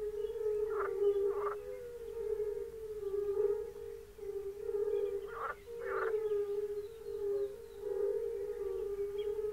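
Chorus of many European fire-bellied toads (Bombina bombina) calling: countless overlapping short, mellow calls merge into a steady, pulsing hum. Twice, a pair of brief harsher sounds stands out above it, about a second in and again about five seconds in.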